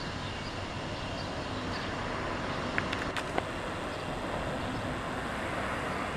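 Steady hum of distant road traffic in a built-up area, with a few sharp clicks about halfway through and faint, evenly spaced high chirps in the first half.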